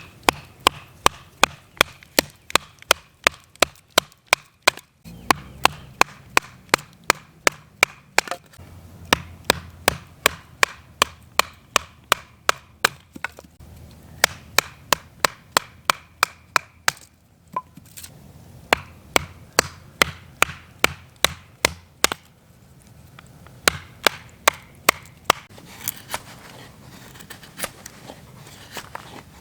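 Firewood being chopped: rapid, evenly spaced sharp strikes into wood, about two or three a second, in runs broken by short pauses.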